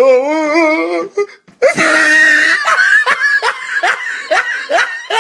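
A person laughing hard and helplessly: first a wavering, wailing laugh, then after a short break a high squealing breath, then a run of short rising gasps of laughter about two or three a second.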